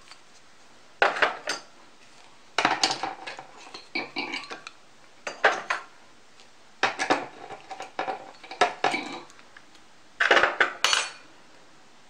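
Knitting-machine claw weights being unhooked from the knitted fabric and handled, making short clinking clatters about eight times, roughly every one to one and a half seconds.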